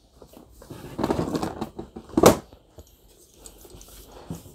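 Rustling and light clattering of collectible figurines being handled in a cardboard box, with one sharp knock a little over two seconds in.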